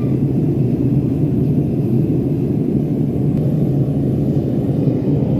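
Gas forge's venturi burner firing steadily, a constant low rushing flame noise with no change in level.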